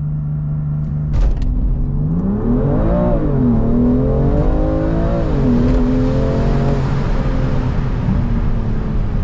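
BMW M2 Competition's twin-turbo 3.0-litre straight-six doing a launch-control start, heard from inside the cabin: the engine holds steady at launch revs for about two seconds, then the revs climb hard with two quick upshifts, about three and five seconds in, and the pitch levels off near the end.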